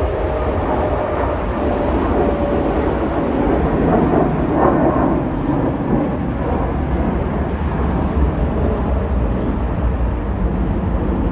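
Jet engines of a narrow-body twinjet airliner climbing out at takeoff thrust: a steady rushing roar with a deep rumble, loudest about four to five seconds in.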